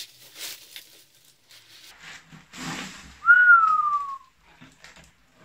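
Bubble wrap crinkling as a boxed car-audio capacitor is unwrapped. About three seconds in comes one loud whistle that falls in pitch for about a second.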